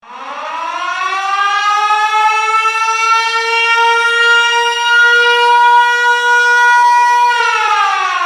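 Military air-raid (war) siren starting up: its wail rises in pitch over about two seconds, holds one steady note, then begins to wind down, falling in pitch near the end.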